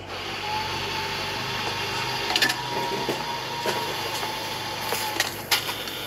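A steady mechanical whir with a faint held tone and a few sharp clicks.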